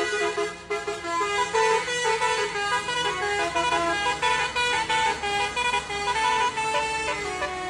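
Indonesian bus 'telolet' horn, a Basuri-type multi-note air-horn set, playing a quick tune of short horn notes that change pitch several times a second.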